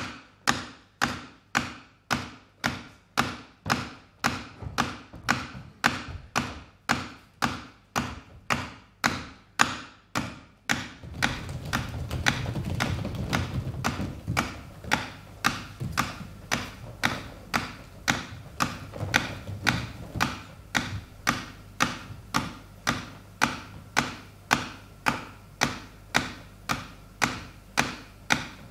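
A steady ticking beat of sharp, evenly spaced clicks, a little under two a second. About eleven seconds in, a low hum joins beneath it.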